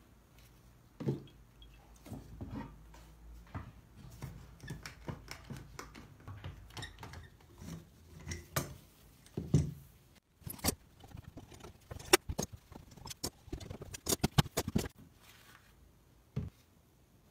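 Irregular knocks and clicks as wooden boards and bar clamps are handled on a metal bench. In the second half there is a dense run of sharp clicks.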